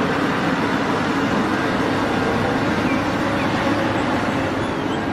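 Caterpillar 6015B hydraulic mining excavator's diesel engine running steadily with a low hum while it dumps a bucket of sand into a dump truck.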